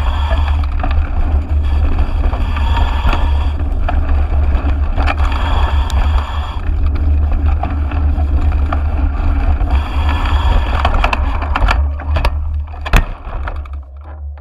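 Wind buffeting a GoPro's microphone and tyre and frame rattle as a mountain bike descends a dirt trail at speed, with frequent knocks from bumps. About a second before the end comes a flurry of knocks and one sharp loud crash as the bike hits a tree stump and the rider is thrown, and then the noise falls away.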